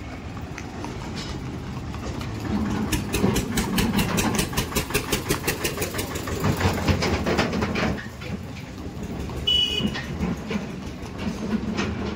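Horse's hooves clattering on a paved road in a fast, even rhythm of several clacks a second, strongest from a few seconds in until about two-thirds of the way through, over a low rumble of traffic.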